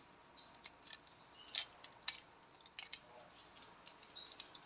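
Faint, scattered small metallic clicks and taps as a CO2 cartridge is handled and seated in the grip of an airsoft revolver. The loudest tap comes about a second and a half in.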